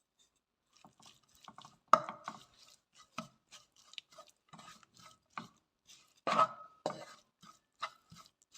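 A spoon stirring onion and spices in a frying pan, with irregular clicks and scrapes against the pan and two louder knocks, about two seconds in and about six seconds in.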